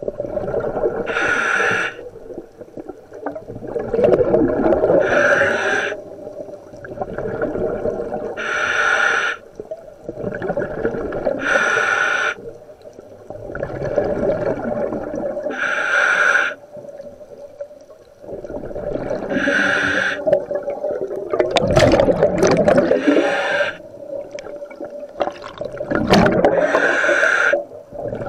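Scuba diver breathing through a regulator in an OTS Guardian full-face mask: a high hissing inhalation about every four seconds, each followed by the low gurgling rumble of exhaled bubbles. The exhaust bubbles are loudest about three-quarters of the way through.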